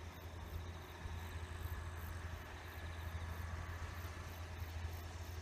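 Insects chirping in a steady high pulsing rhythm, about three pulses a second, over a low steady rumble.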